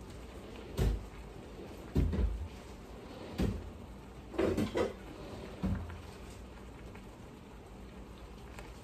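A run of dull knocks and thumps in the kitchen, about six over five seconds, over the low steady simmer of steaks cooking in teriyaki sauce in a frying pan.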